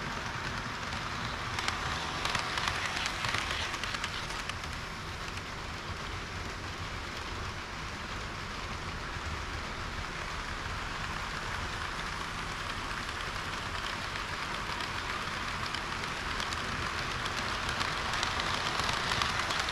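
HO-gauge model train running along the track: a steady rumble and fine clatter of metal wheels on the rails, swelling about two seconds in and again near the end.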